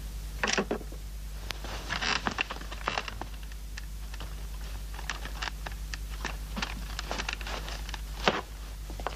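Irregular clicks, taps and short rattles of small hard parts being handled and worked on, with louder clatters about half a second, two, three and eight seconds in, over a steady low electrical hum.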